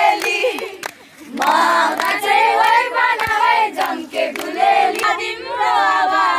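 A group of young women singing a song together in chorus, with hand claps keeping the beat. The singing drops out briefly about a second in, then picks up again.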